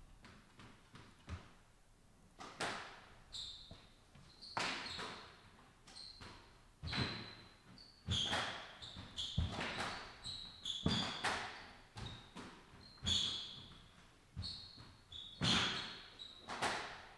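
Squash rally: the ball cracks off the rackets and smacks against the court walls about once a second, with shoes squeaking sharply on the wooden floor, echoing in the enclosed court. Before the rally begins, about two seconds in, there are a few faint ticks.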